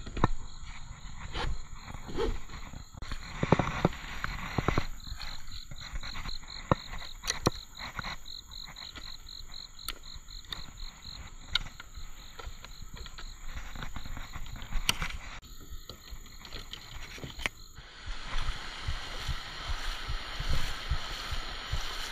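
Cam straps and bungees being fastened on a fishing paddleboard: scattered buckle clicks and scrapes, with a rhythmic chirping animal call in the background for several seconds. Near the end the sound changes to the steady rush of creek water over rocks.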